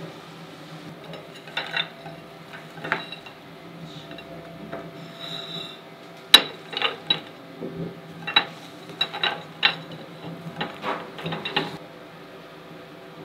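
Irregular clinks and knocks of kitchen dishes and utensils over a steady hum. The sharpest knock comes about six seconds in, followed by a busy run of clatter.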